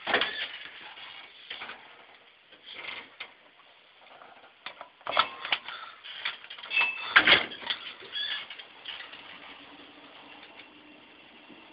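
Small single-speed traction elevator with a relay controller running: irregular mechanical clicks and knocks, loudest about five to eight seconds in, then a faint steady hum near the end.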